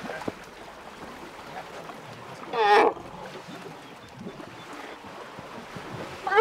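A young elephant gives one short trumpet, rising then falling, about two and a half seconds in, over low splashing and trickling of water at a watering hole.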